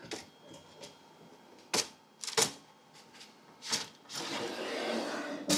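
A flat base panel with loose honeycomb strips knocking and sliding into the base of a Creality Falcon2 Pro laser engraver: a few sharp knocks, then a scraping slide of about a second and a half, ending in a knock as it seats.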